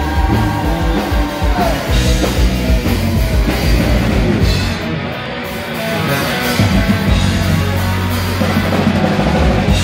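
Live rock band playing loudly through a PA: electric guitars over a drum kit, easing off briefly about halfway through.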